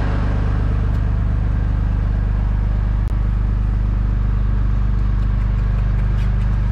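An engine running steadily at idle: a constant low hum with a fast, even pulse that does not change. There is a short click about three seconds in.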